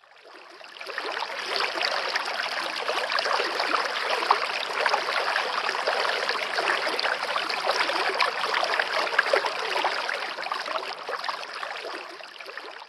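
Stream water rushing over a stony bed in a steady, dense wash. It fades in over the first second or so and fades out near the end.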